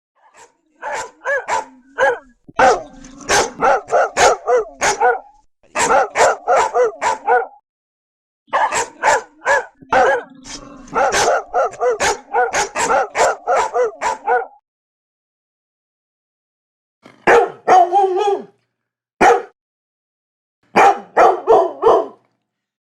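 Dog barks in quick runs of several barks a second, broken by short gaps. A pause of a couple of seconds comes past the middle, then shorter volleys and a single bark.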